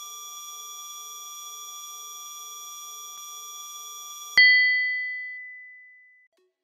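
Synthesized loading-bar sound effect: a steady electronic tone with a faint pulsing beneath it, cut off about four seconds in by a sharp chime that rings and fades away, marking the bar reaching full.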